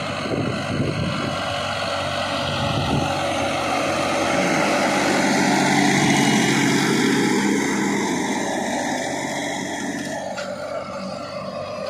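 Swaraj 960 tractor's turbocharged diesel engine working under load while pulling a disc harrow. It grows louder toward the middle and then fades, as if the tractor passes close by. The turbocharger makes no abnormal rattling noise; the owner judges it to be working properly.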